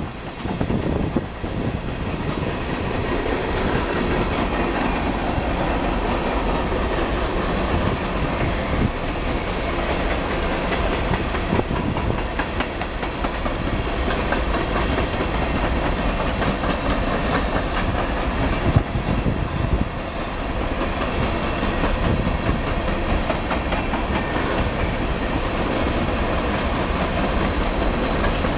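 Empty coal hopper cars of a Union Pacific freight train rolling past, their wheels clacking steadily over the rail joints amid a continuous rattle of the cars, with one louder knock a little over two-thirds of the way through.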